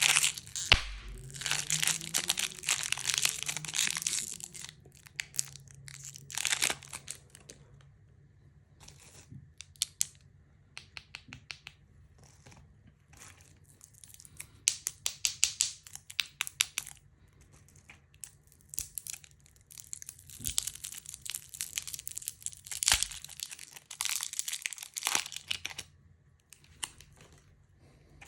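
Plastic candy wrappers and packaging being crinkled and torn open by hand, in bursts of crackling with scattered small clicks and pauses between them. A faint low hum runs underneath.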